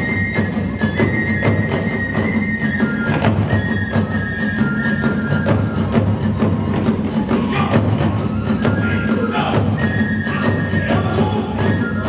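Kagura accompaniment music: a high flute melody of held, stepping notes over fast, steady drum beats and cymbal clashes.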